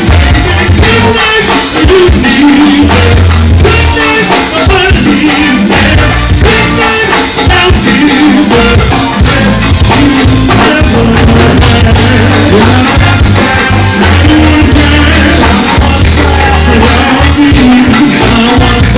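Live go-go band playing loud: drum kit and congas keep a steady beat under a bass line, with vocalists singing and chanting into microphones.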